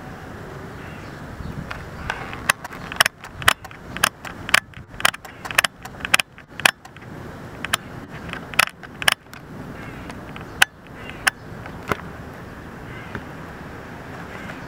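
Eastern box turtle biting at worms on a stone paver: a run of sharp, irregular clicks and snaps from its beak, about two a second, starting about two seconds in and thinning out near the end, over steady background noise.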